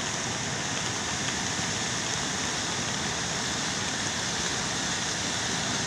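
Fast brown floodwater rushing down a swollen stream: a steady, even rush of water.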